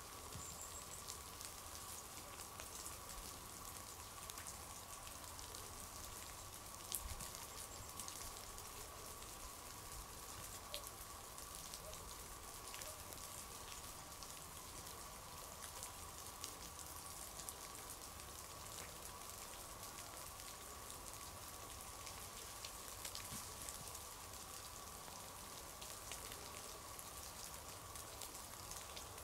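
Faint, irregular patter of falling water drops, with one sharper tick about seven seconds in, over a steady hiss and a faint steady whine.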